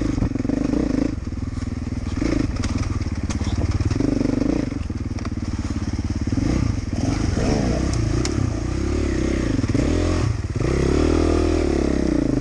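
Dirt bike engine heard from the rider's helmet while riding a rough forest trail, the engine note rising and falling again and again as the throttle is worked, with a longer rev near the end. Occasional short knocks and clatter come from the bike over the rough ground.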